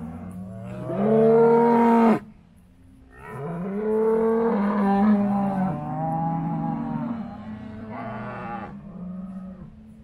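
Brown Swiss cows mooing: one loud moo about a second in that cuts off sharply at about two seconds, then a longer run of overlapping moos from about three seconds in until near the end.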